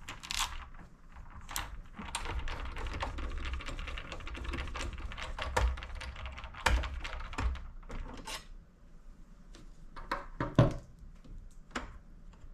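The small screw on a PS5's M.2 expansion bay cover being unscrewed and the cover taken off: a few seconds of light scraping, with a scatter of sharp clicks and taps.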